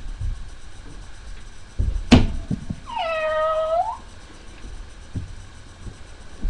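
A sharp knock about two seconds in, then a cat meows once, a drawn-out meow of about a second.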